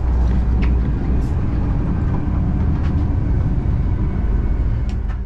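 Steady low rumble of an LNER Class 801 Azuma electric train running along the line, wheels and running gear heard from inside a vestibule, with a few faint ticks.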